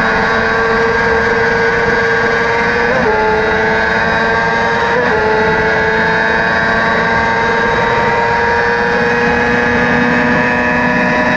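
Crosskart's motorcycle-derived engine running hard at high revs near top speed, heard from the cockpit, with wind and road noise. The note holds steady apart from two short breaks about three and five seconds in, as quick gear shifts.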